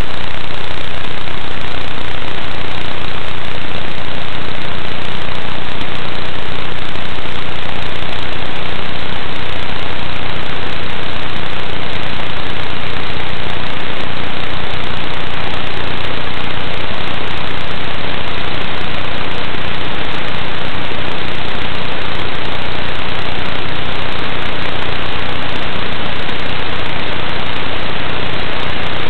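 Loud, steady hiss of static from the analog FPV video link's audio channel, recorded by the goggles' DVR, with no motor pitch heard in it. The pilot is unsure of its cause and suspects a low goggle battery.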